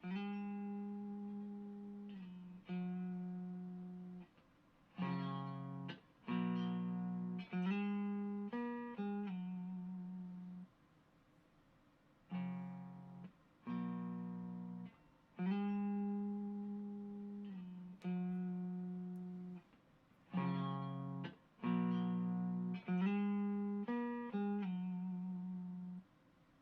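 Electric guitar, a Fender Stratocaster on its neck single-coil pickup, played through a Xotic Effects SL Drive overdrive pedal and an Orange Micro Dark amp. It plays a repeating phrase of struck chords and single notes, each left to ring and fade, with short silent gaps between phrases.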